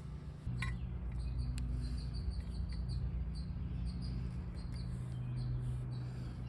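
M6 x 1.0 hand tap in a bar tap wrench cutting threads into an untapped drilled hole in an aluminum plate, squeaking in short high chirps as it is turned, with a couple of clicks early on. A steady low hum runs underneath.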